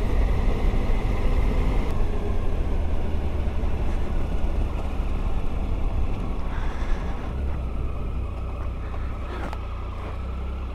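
Triumph Tiger Sport motorcycle's three-cylinder engine running on the move, with a steady low rumble of wind and road noise; it goes a little quieter about seven seconds in as the bike slows for a junction.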